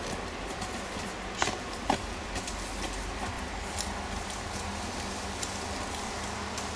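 Muffled hoofbeats of a horse trotting on a soft sand arena under a steady low rumble, with two sharp clicks about a second and a half and two seconds in.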